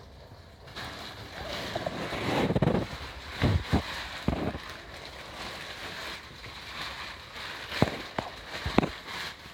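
Rushing storm wind and rain noise that sets in under a second in and swells loudest about two to three seconds in, with several sharp knocks scattered through it.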